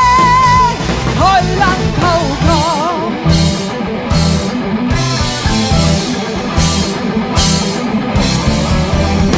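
Rock band playing: a female singer holds a long high note with vibrato that ends about a second in, then sings a short wavering run, and the band carries on with electric guitars, bass, keyboard and drum kit with repeated cymbal crashes.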